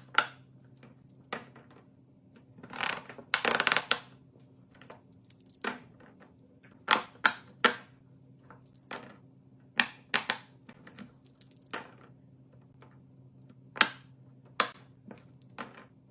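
Silicone pop-it fidget toy bubbles being pressed, an irregular series of sharp pops and clicks, with a longer burst of handling noise about three seconds in. A faint steady low hum runs underneath.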